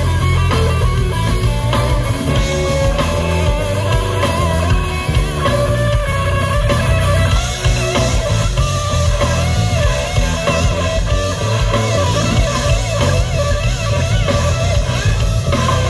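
Live rock band playing loud: electric guitars, bass guitar and drum kit together, with no pause. A wavering melodic lead line comes in about halfway.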